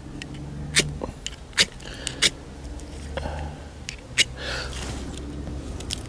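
Ferrocerium rod fire starter of a Leatherman Signal multitool being struck four times, each strike a sharp short rasp, to throw sparks for lighting a fire. A low steady rumble runs underneath and fades near the end.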